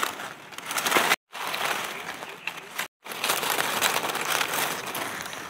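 Dry leaf litter rustling and crackling as hands push through it to pick mushrooms. The crackling is broken twice by brief dead-silent gaps, about one and three seconds in.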